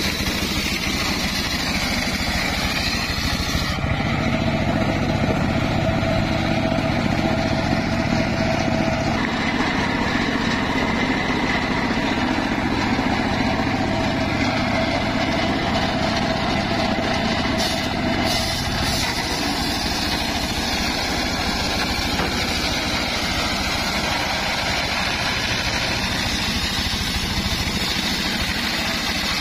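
Home-built engine-driven circular saw bench running steadily while its blade rips a log lengthwise, with a steadier hum through the middle part.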